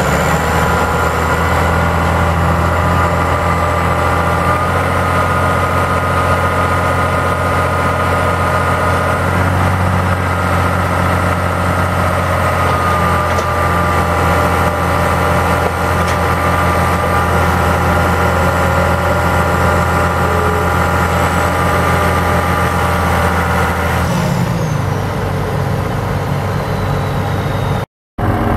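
John Deere 6615 tractor's six-cylinder diesel engine running steadily while the front loader is raised and lowered. The engine note drops about three-quarters of the way through, and the sound cuts out briefly near the end.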